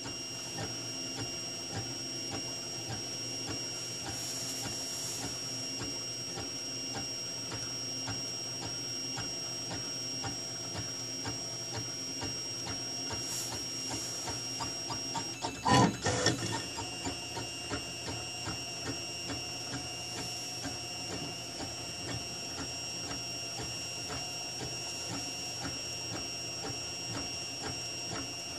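Printrbot Simple Metal 3D printer printing: its stepper motors buzz and tick in quick short moves over a steady high whine. A brief louder clatter comes about halfway through.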